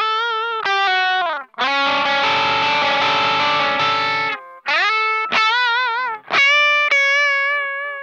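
Electric guitar played through a T-Rex Vulture distortion pedal, with its overdriven tone. Short single notes with vibrato come first, then a dense distorted chord held for about three seconds. A few more vibrato notes follow, then a long sustained note that rings on with vibrato and slowly fades.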